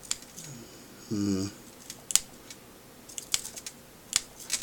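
A few sharp clicks and ticks of a small tool working at the tiny LCD displays of iWear AV230 XL video glasses, trying to prise them off their mounts.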